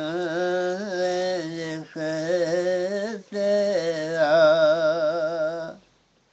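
A man singing an Urdu devotional song (naat) in long, held, wavering notes, three phrases with short breaks between them, stopping shortly before the end.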